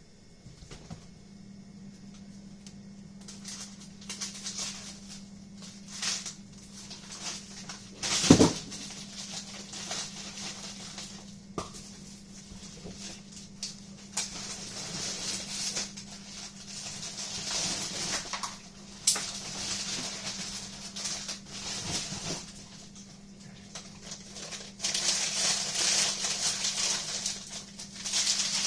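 Kitchen handling sounds: on-and-off rustling with a loud knock about eight seconds in and a sharper click later, over a steady low hum.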